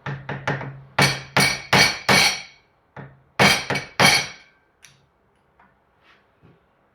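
Hammer striking a screwdriver against the seal head of a Yamaha TZR 250 rear shock to drive it down, a run of sharp metallic taps with short ringing, loudest in two bursts of three or four strikes, then a few light ones. The seal head is tight and hardly moves.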